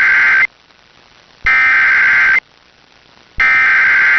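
Emergency Alert System SAME header: three bursts of buzzy digital data tones, each just under a second long with about a second between them, the first already under way. These are the frequency-shift-keyed codes that open an EAS activation, here carrying a flash flood warning.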